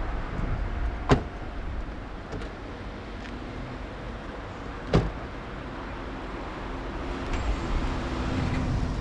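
Low, steady rumble of a slow diesel-hauled train moving away, the DE701 diesel locomotive pulling a string of unpowered KiHa railcars. It is broken by two sharp clicks, about a second in and again about five seconds in.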